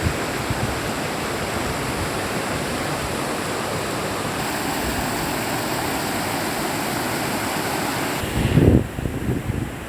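River water rushing steadily in an even, full hiss. About eight seconds in the rushing drops away, and a loud low buffeting of wind on the microphone comes in.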